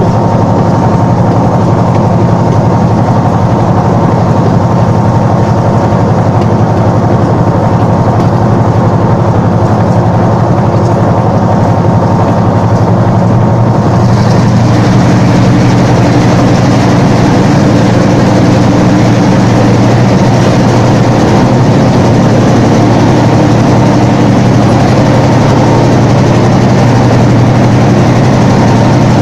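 The V12 EMD 645 diesel engine of a Class M6 (EMD G22M) locomotive running steadily, heard from the walkway beside the engine hood as the train moves. About halfway through it turns brighter and a little louder as the locomotive enters a tunnel and the sound echoes off the walls.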